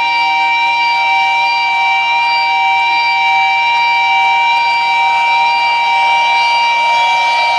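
Sustained electric guitar feedback through a rock concert PA: several high tones held steady and loud.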